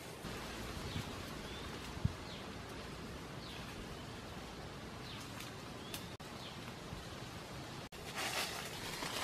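Woodland ambience: short, high bird chirps now and then over a steady background hiss, with a single low thud about two seconds in. Near the end, loud rustling and crackling through leaves and brush.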